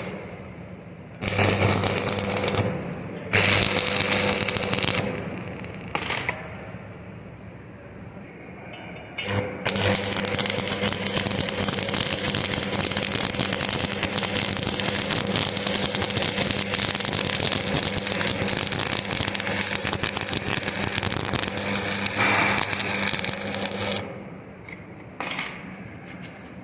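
Arc welding: the electric arc crackling in a few short runs, then in one unbroken run of about fourteen seconds that stops about two seconds before the end. A low steady hum sounds under the crackle.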